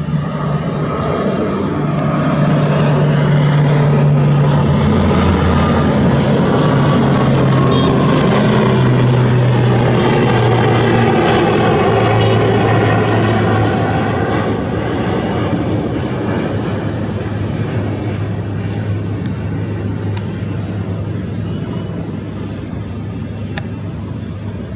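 Twin turboprop engines of an ATR 72 airliner at takeoff power during climb-out: a loud, steady propeller drone with a high turbine whine that slowly drops in pitch. The sound is loudest a few seconds in and fades gradually as the aircraft climbs away.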